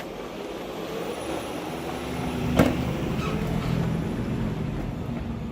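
A motor vehicle passing by, its rumble swelling and then fading, with one sharp click about halfway through.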